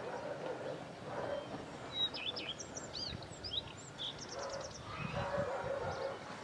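Birds singing outdoors: a cluster of short high chirps and whistles for about two seconds, ending in a quick trill of half a dozen notes, over steady background noise.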